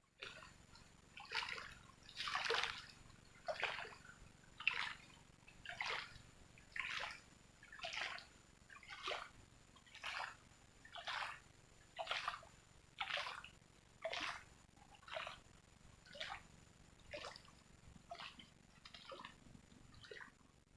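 Water splashing in a steady rhythm, about one splash a second, some twenty times in a row.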